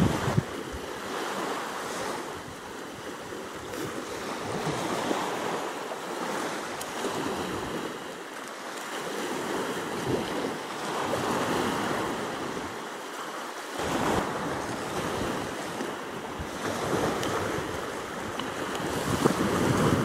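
Small sea waves washing up on a sandy shore, the wash swelling and fading every few seconds.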